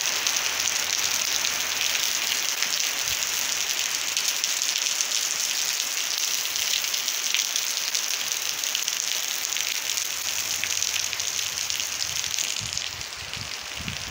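Steady rain falling, a dense even hiss, which eases slightly near the end.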